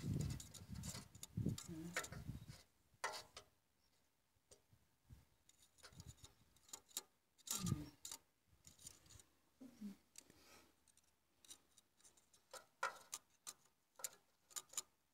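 Scattered light metallic clicks and taps of a steel caliper being handled and set against an injector rocker arm to check injector height, with some dull handling rumble in the first couple of seconds.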